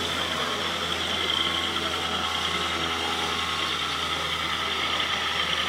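Radio-controlled model truck's engine-sound module playing a steady diesel running sound, with a higher whine above it.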